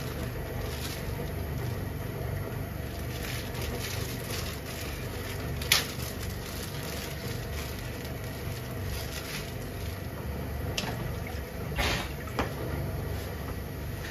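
Home stovetop cooking: a steady low rumble with a few sharp clinks, one about six seconds in and two close together near the end.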